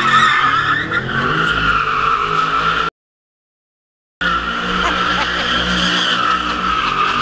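Audi R8 spinning a doughnut: tyres squealing steadily over the engine revving hard. The audio drops out completely for about a second in the middle.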